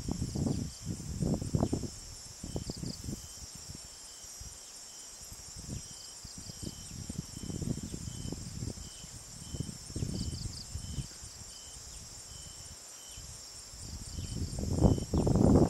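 Evening insect chorus: a steady, high, pulsing drone of crickets or similar insects, with a short chirp repeating about twice a second. Under it come irregular low rustles and bumps, which grow louder near the end.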